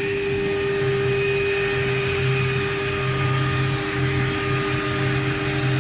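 ATC CNC router spindle running with a steady whine while routing a panel profile into a door blank, over the rush of air through its dust-extraction hood. A lower drone under it comes and goes as the cut goes on.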